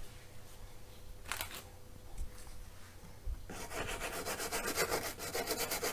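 A stiff-bristled brush scrubbing a printed circuit board with fast back-and-forth strokes, cleaning dirt left by an insect around a burnt Zener diode. After one short brush stroke, the steady scrubbing starts about three and a half seconds in.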